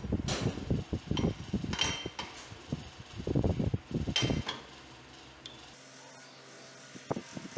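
A steel axe head knocking, clinking and scraping against a steel bench vise as it is handled, a run of irregular knocks with short metallic rings that dies down about halfway through.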